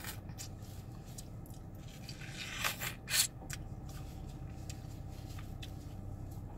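Biting into and chewing a slice of watermelon close to the microphone: small wet clicks and crunches, with two louder crunching bites a little before halfway through, over a steady low hum.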